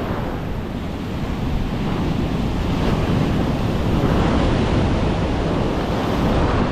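Ocean surf breaking and washing through the shallows, swelling louder after about two seconds as a wave breaks close by, with wind rumbling on the microphone.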